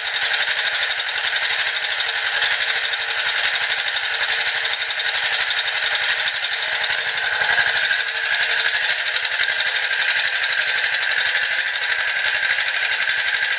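Small engine of a screw-type cone log splitter running steadily with a rapid, even chugging. A higher steady whine joins it about seven seconds in.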